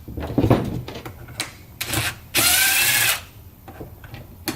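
Cordless impact driver with a T15 Torx bit running briefly, its motor whine rising as it spins up to back out a screw from the oscillating tool's housing. A few light handling clicks come first.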